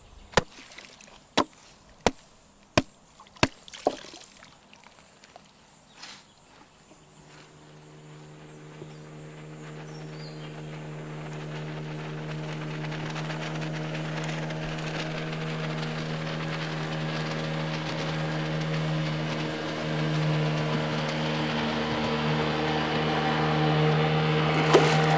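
Wet laundry slapped against a wooden board about seven times in the first four seconds. Then a boat's motor comes in, a steady drone that grows gradually louder as it approaches.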